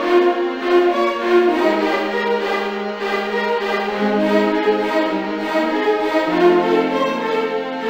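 Background music of bowed strings, violin over lower strings, playing sustained notes.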